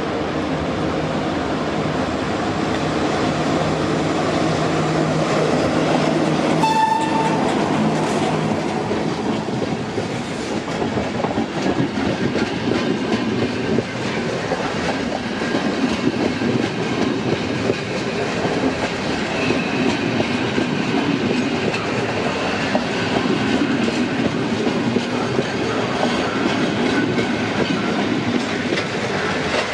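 A locomotive-hauled passenger train approaches and passes close by, giving one short horn blast about seven seconds in. Its coaches then keep rolling past with a steady run of wheel noise.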